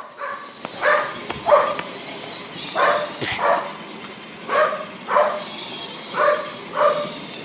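A dog barking over and over, a short bark roughly every half second to second.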